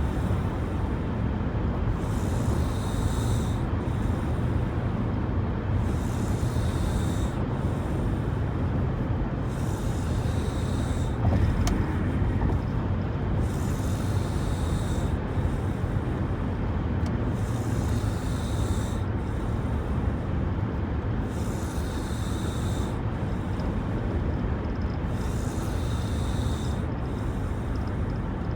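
A person snoring, with a rasping breath sound about every two seconds over a steady low rumble.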